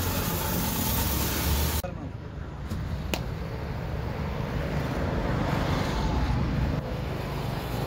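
A steady loud hiss that stops abruptly at a cut about two seconds in, followed by outdoor road traffic noise: a low steady rumble with a single sharp click about three seconds in.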